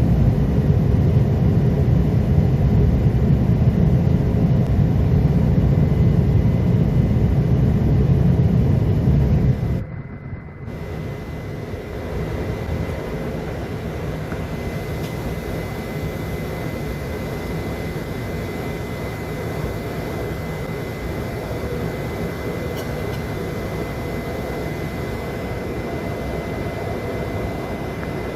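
Airliner cabin noise during takeoff: a heavy low rumble for about the first ten seconds, which drops off suddenly. After that, smoother, slightly quieter engine noise with a steady high whine.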